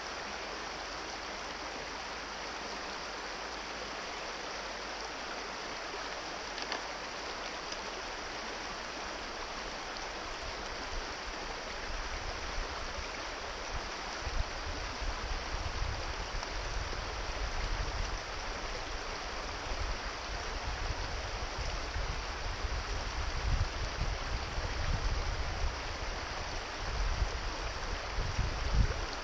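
Shallow rocky brook rushing steadily over stones and riffles. From about twelve seconds in, an uneven low rumbling comes and goes under the water sound.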